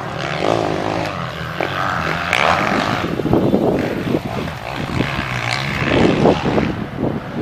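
Motocross dirt bike engines revving up and backing off over and over, the engine pitch rising and falling.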